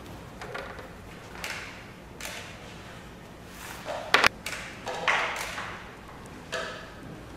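Scattered light taps, clicks and knocks of pens and crayons being handled and set down on a wooden table. The sharpest is a quick double click about four seconds in.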